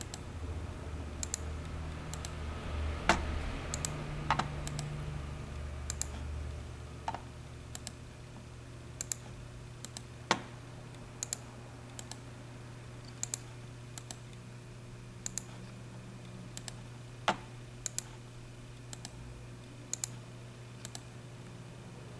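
Computer keyboard keys and mouse buttons clicking, often in quick pairs, roughly one or two a second, over a steady low hum.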